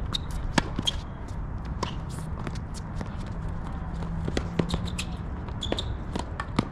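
Scattered sharp taps and scuffs of footsteps and tennis balls on a hard court, over a low wind rumble on the microphone.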